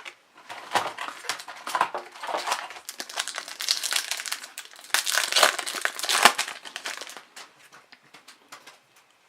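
Plastic wrapper of an Upper Deck hockey card pack crinkling and crackling as it is handled and opened, a dense run of irregular crackles that thins out near the end.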